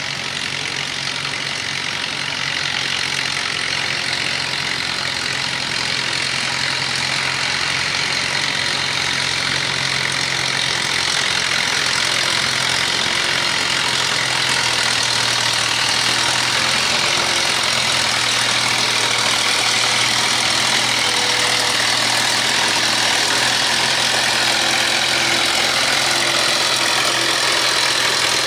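A Minneapolis-Moline tractor engine runs steadily under load while pulling a tractor-pull sled, growing gradually louder.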